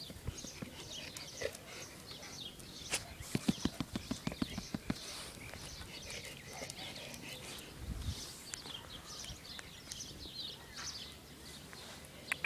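A black Labrador panting in quick, even breaths, about five or six a second, in a spell a few seconds in. Birds chirp faintly in the background.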